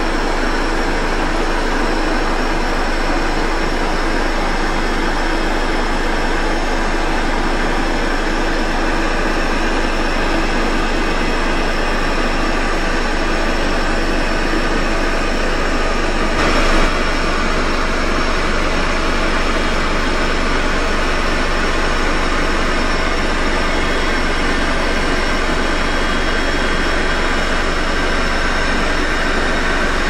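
Electric air pump running steadily as it inflates an air mattress: a loud, even hum-and-rush with a brief louder moment about halfway through.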